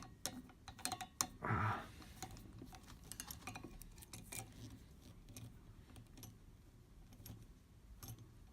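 Metal wing corkscrew clicking and rattling in irregular small ticks as it is twisted and worked on a wine bottle's cork that will not come out, with one brief louder sound about a second and a half in.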